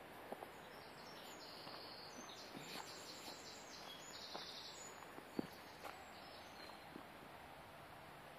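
Faint outdoor ambience in grass and brush, with high-pitched chirping trills for a few seconds through the middle and a few soft clicks.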